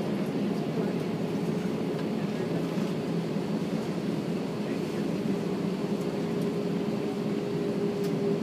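Airbus A320 cabin noise from a window seat: the steady hum of the jet engines at low power as the airliner taxis slowly, with a faint steady tone that grows clearer near the end.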